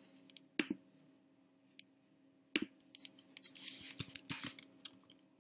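Computer mouse and keyboard clicks: single sharp clicks about half a second and two and a half seconds in, then a quick run of clicks and key taps from about three to four and a half seconds in, over a faint steady hum.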